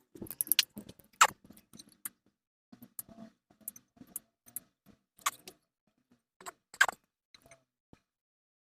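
Handling noises of small hard parts and tools: scattered clicks, taps and light scrapes, with sharp knocks about a second in and again near seven seconds.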